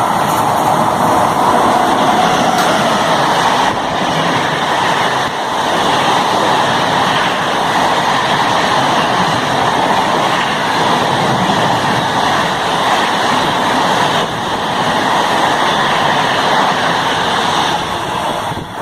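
Express train passing close by at speed: a loud, steady rush of wheels and coaches with no horn, falling away just before the end.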